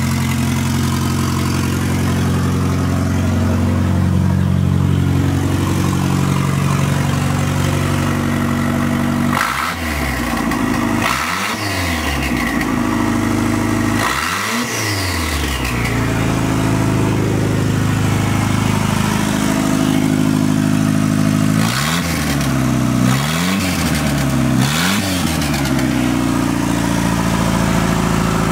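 Turbocharged 2.0 L single-overhead-cam engine of a 1986 Mazda 929 coupe running with no exhaust fitted after the turbo, the open turbo outlet loud. It idles, then is revved three times near the middle and three more times later on, the pitch climbing and falling with each blip, and a high whistle falls away after two of the first revs.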